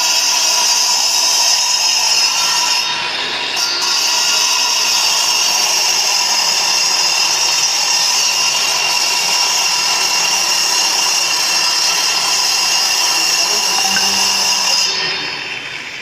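Handheld angle grinder with a cutting disc running steadily against a plastered concrete wall, chasing out a crack so it can be filled with cement. About a second before the end the disc comes off the wall and the tool winds down with a falling whine.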